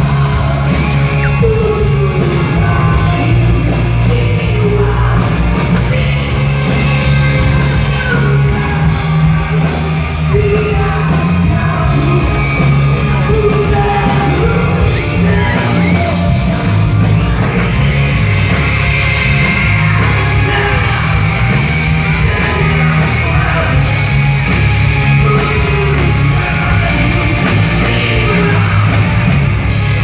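Live rock band playing a song with a lead singer, heard loud through a concert PA with heavy bass, with the crowd shouting along.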